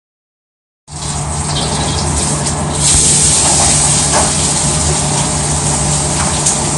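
Loud steady hissing rush over a low hum. It starts abruptly about a second in, grows louder and brighter about two seconds later, then cuts off suddenly.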